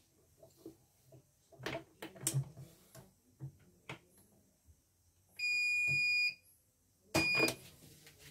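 CNY portable computerised embroidery machine giving its electronic start-up beep: one steady high beep of just under a second about five and a half seconds in, then a shorter beep under a knock. Light handling clicks and knocks on the machine come before it.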